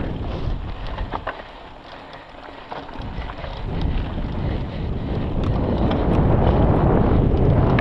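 Wind rushing over the microphone of a mountain bike being ridden fast on a dirt race course, with scattered clicks and rattles from the bike and trail. The rush eases for about a second around two seconds in, then builds, loudest near the end.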